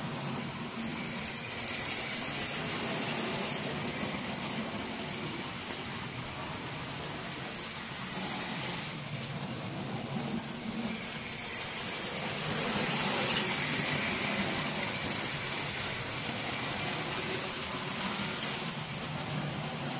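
Model trains running on a layout track: a steady rushing whir of small motors and wheels on rail, growing louder about twelve to fifteen seconds in.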